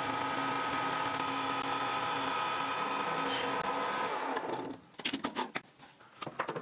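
Metal lathe running a facing cut with a carbide insert tool: a steady machine hum with a held whine. About four and a half seconds in the hum dies away, followed by several sharp clicks and knocks.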